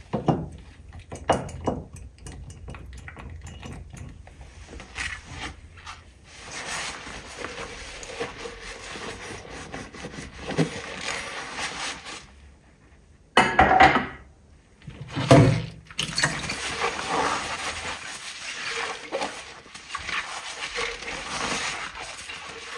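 Kitchenware being handled during cleaning: dishes, pots and utensils clinking and knocking, with long stretches of steady noise between the clatters.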